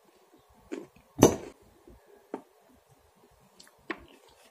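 Close-up eating sounds with a fork: a sharp, loud click about a second in, then a few fainter clicks and mouth noises while cucumber slices are chewed.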